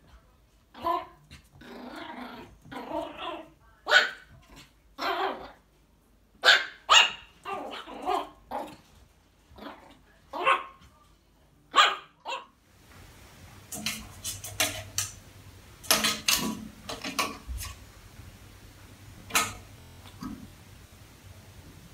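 A dog barking and growling in short, repeated bursts, a dog reacting to its own reflection in a mirror. About two-thirds of the way through, the sound changes abruptly to a low steady hum with a few scattered barks and sharp sounds.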